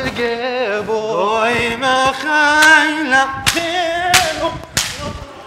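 A solo voice singing an ornamented liturgical chant, its melody bending and wavering from note to note.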